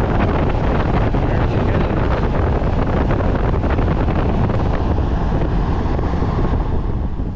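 QuietCool gable attic fan running, its exhaust air blowing across the microphone as a loud, steady rush of wind noise with a low hum underneath.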